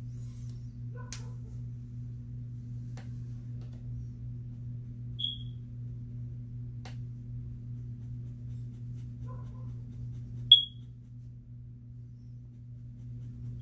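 Two short, high-pitched chirps about five seconds apart, the second louder, over a steady low electrical hum, with a few faint ticks.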